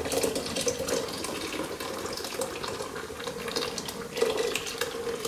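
Milk stout beer pouring in a steady stream from a 16-ounce aluminium can into a deep pot of sauce ingredients, with a light fizz of foam. The pour grows louder for a moment about four seconds in.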